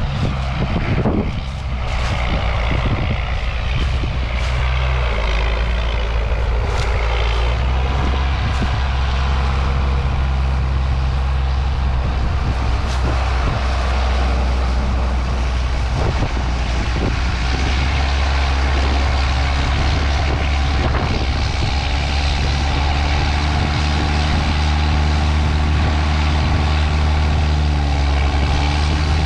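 Large farm tractor's diesel engine running steadily as the tractor gets rolling with a load of harvested corn, a deep even hum throughout, the note shifting slightly in the first few seconds.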